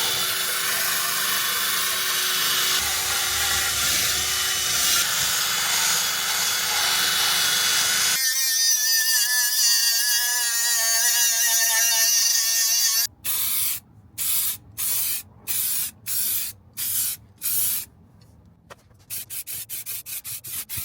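Aerosol spray cans of rust paint and primer hissing in long steady passes. About eight seconds in, the hiss changes to a wavering, whistling spray for several seconds. It then stops, and a series of sharp rattling strokes follows, about two a second and quickening near the end, as of a spray can being shaken.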